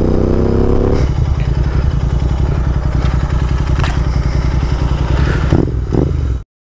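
Royal Enfield Interceptor 650's parallel-twin engine accelerating under load, its note rising for about the first second, then running on steadily at lower revs as the bike rides along. The sound cuts off abruptly near the end.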